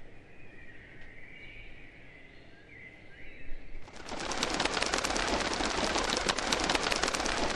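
Faint bird chirps, then about four seconds in a loud, dense crackling clatter of rapid clicks sets in and keeps going.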